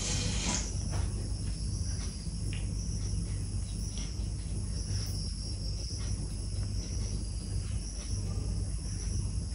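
Crickets chirring in a steady high trill that swells and fades in patches, over a low steady hum.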